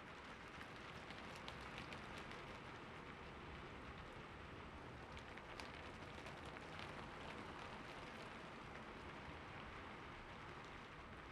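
Light rain falling steadily, a soft even hiss with many small drop ticks scattered through it, thicker in the first half.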